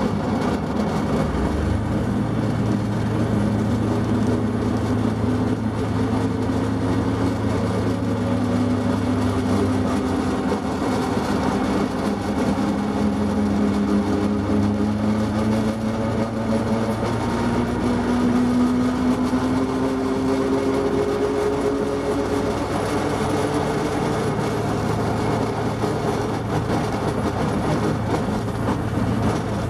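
Small Plymouth switcher locomotive's engine running under way as the train rolls slowly along the track, the engine pitch slowly rising and falling.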